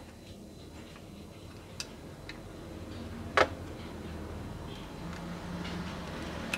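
A few sharp clicks and taps of small metal parts being handled, screws and a screwdriver on a laptop hard-disk bracket. The loudest comes about three and a half seconds in, over a low steady hum.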